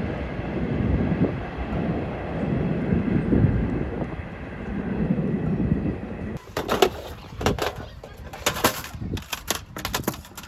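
Low rumbling gusts of wind buffeting the microphone, swelling and fading every second or two. About six seconds in they give way to a string of sharp clicks and taps.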